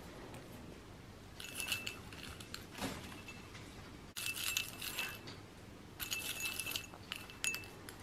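Green-cheeked conure digging in a small glass ramekin of cut paper straws and crumbled treats, its beak and the straws clinking and rattling against the glass in several short bursts, with the glass ringing.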